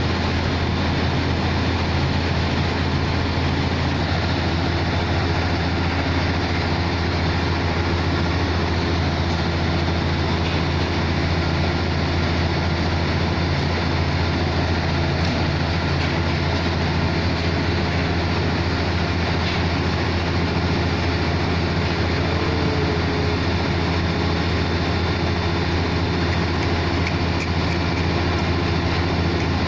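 655 CFM portable diesel air compressor running at a steady speed: a constant low engine drone with steady noise above it, unchanging throughout.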